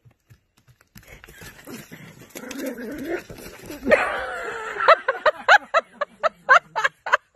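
Small dog whining, then yapping in a rapid run of high, sharp barks, about three a second, from about five seconds in.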